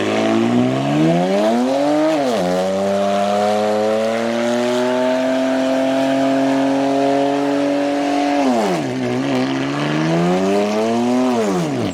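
Car engine revved hard: it climbs for about two seconds, is held at high revs for some six seconds, drops, then climbs once more and falls away near the end.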